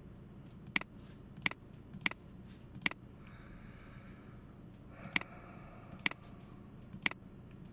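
Computer mouse clicking: seven sharp single clicks, roughly one a second, with a pause of about two seconds in the middle.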